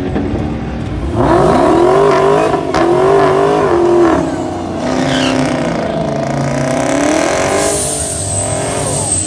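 Dodge Challenger doing a burnout in the water box: the engine is revved hard with its pitch rising and falling as the rear tyres spin and smoke. It eases briefly about four seconds in, then revs up again as the car rolls out.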